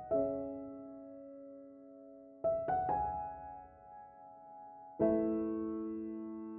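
Slow, soft background piano music: chords and single notes struck about every two and a half seconds and left to ring out.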